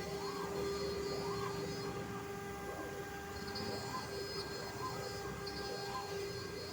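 CNC router working MDF: a steady motor whine underneath, with a whining pitch that rises and falls about once a second as the stepper motors speed up and slow down through each move.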